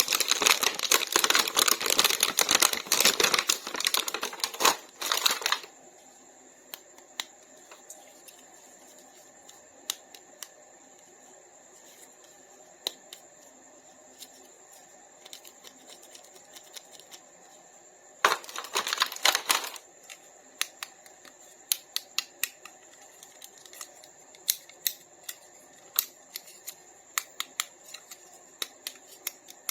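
Toy packaging being handled and opened: dense crinkling and rustling for about five seconds, then scattered light plastic clicks and taps, with another short burst of rustling a little past halfway.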